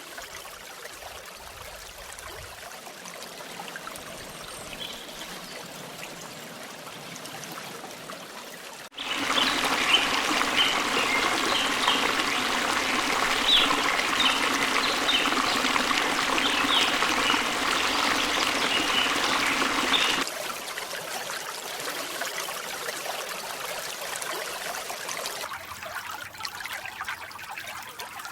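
Running stream water. A quieter trickling flow gives way suddenly, about nine seconds in, to a louder, closer stretch of rushing water full of small splashes. It drops back to a quieter flow about twenty seconds in.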